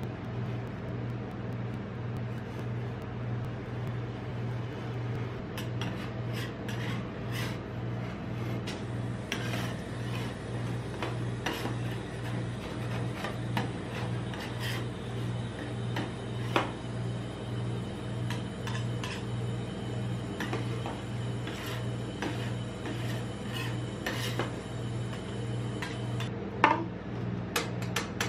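Metal spatulas scraping and tapping on the steel plate of a rolled-ice-cream cold pan, the scraping and clicks starting a few seconds in, with two louder knocks, one just past the middle and one near the end. Under it runs a steady low hum that pulses about twice a second.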